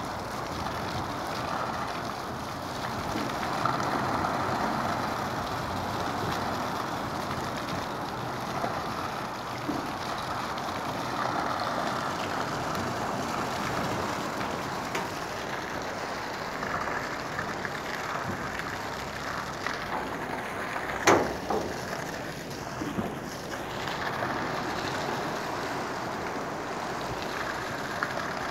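Heavy rain pouring down in strong, gusting wind, with wind buffeting the microphone. One sharp crack about three-quarters of the way through is the loudest moment.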